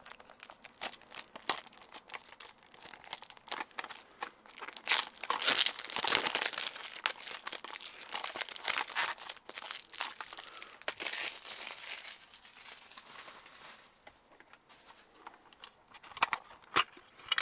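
Crinkly plastic wrapping being torn and pulled off a new cassette, a dense run of crackling that is busiest in the middle and thins to a few scattered clicks near the end.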